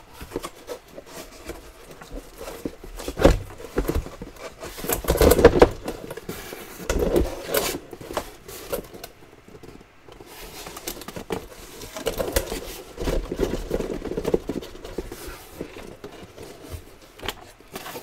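Cardboard shipping case being handled and lifted off a stack of sealed trading-card boxes: cardboard scraping and rustling, with scattered knocks and bumps.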